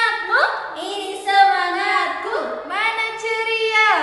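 Women singing a song together without accompaniment: long held notes joined by sliding rises and falls in pitch, with a short pause for breath near the end.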